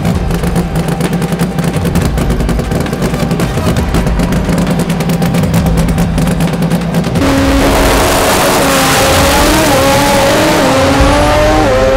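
Honda-powered drag racing car's engine running with a fast, choppy crackle. About seven seconds in it goes to full throttle, and its pitch climbs and drops back at each gear change.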